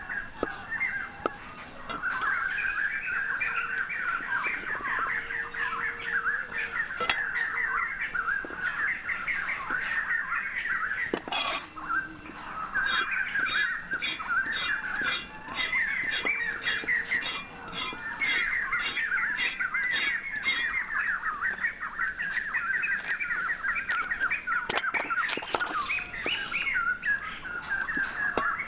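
Cleaver chopping vegetables (tomato and carrot) on a wooden chopping block: scattered single chops, then a steady run of chops about two to three a second through the middle. Birds chirp continuously behind it.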